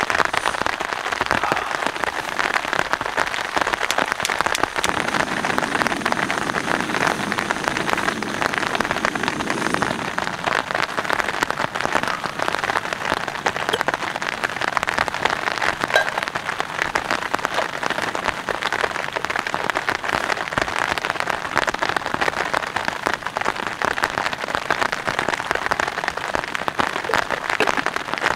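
Steady rain falling: a dense, even patter of drops on the tent fly and the grass around it.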